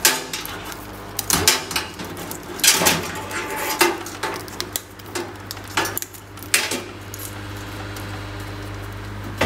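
Power supply cables and their plastic connectors being handled inside a steel computer case: irregular light clicks, knocks and rattles against the sheet metal, thinning out near the end.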